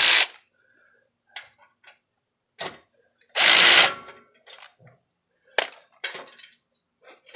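Scattered clicks and clinks of hand tools and metal parts at the tailpipe bolts, with one louder rasping burst about three and a half seconds in.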